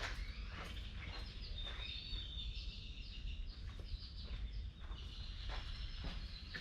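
Birds chirping and whistling repeatedly over a steady low background rumble, with a few scattered faint clicks.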